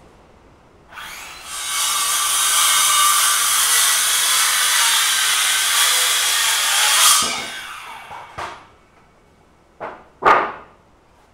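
Electric power saw cutting through a piece of timber: the blade runs through the wood for about six seconds, then the saw winds down. A few short bursts of noise follow near the end.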